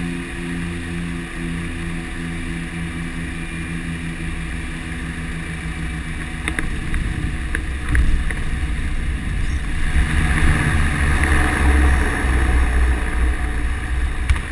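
Cockpit sound of a DHC-6 Twin Otter's PT6A turboprop engines and propellers on short final, a steady droning hum. A few clicks and then a thud as the wheels touch down about eight seconds in, followed by a louder rushing rumble through the landing roll.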